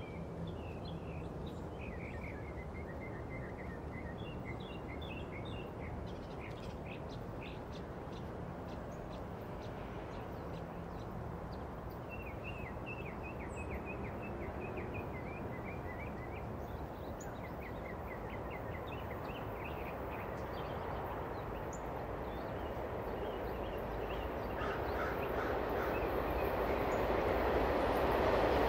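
Birds singing in repeated short chirping phrases over the low rumble of an approaching passenger train, which grows steadily louder over the last several seconds as it nears.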